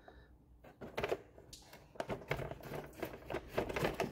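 Light, irregular clicks and knocks of a radiator and its fan being handled and set down into an engine bay, parts tapping against one another as they are lined up.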